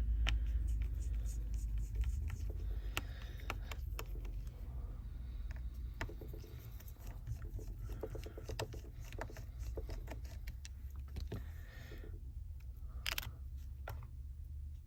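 Small clicks and short scrapes of repair tools working on a Samsung Galaxy S8+ smartphone's parts, over a steady low hum.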